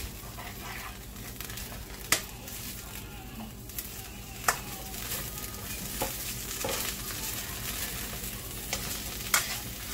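Shredded cabbage sizzling as it is stir-fried in a frying pan, a steady hiss, with a black spatula scraping through it and a few sharp clicks of the spatula against the pan.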